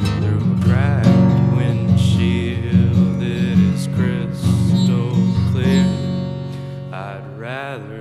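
Music: a wordless passage of a song, with a steady low part and wavering, sliding higher notes over it, getting somewhat softer over the last two seconds.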